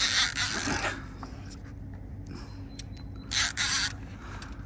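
Baitcast reel rasping in two short bursts, the first about a second long and the second shorter about three seconds in, as a hooked catfish is fought on the rod. A steady low hum runs underneath.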